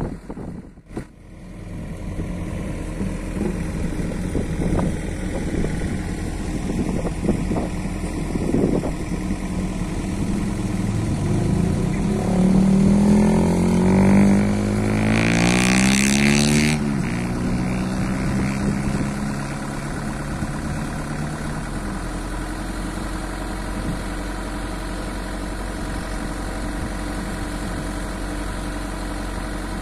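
Diesel truck engine running at the crane truck's work site, revving up and down in the middle, with a short loud hiss at the peak of the revs. It then settles back to a steady idle.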